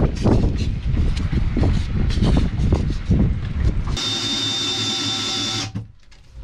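Wind buffets the microphone for about four seconds. Then a Makita cordless drill runs with a steady whine, spinning a sandpaper-wrapped hole saw to sand a recess around a shower-pan drain, and stops suddenly after about a second and a half.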